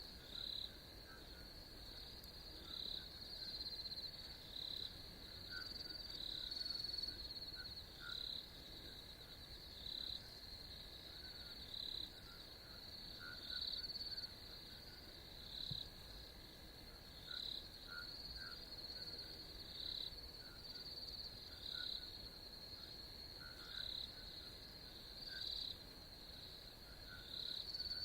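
Outdoor chorus of calling insects and frogs: a steady high trill with louder pulses roughly once a second, and short lower calls repeating through it.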